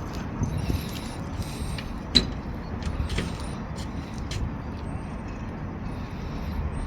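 Low, steady rumble of an ER9M electric multiple unit with several sharp metallic clicks, the loudest about two seconds in. No horn sounds here.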